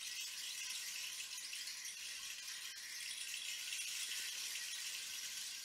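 A steady, high rattling hiss with no low tones, like a shaker or rain stick kept in motion.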